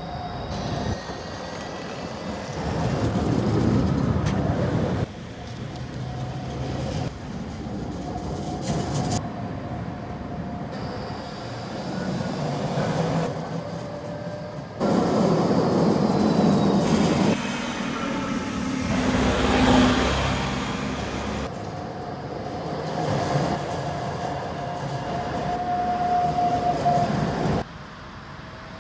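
Trams running on street track: wheel-on-rail rumble and clatter with a thin steady whine. Several abrupt changes break it up, as separate short passes follow one another.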